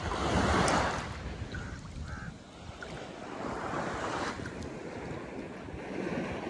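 Sea surf washing onto a beach on the Gulf of Oman, surging and easing in swells, loudest about a second in. Wind rumbles on the microphone.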